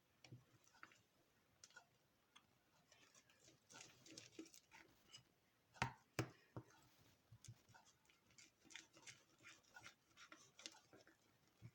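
Faint squishing and clicking of fluffy slime being stirred in a bowl, with two sharper clicks about six seconds in.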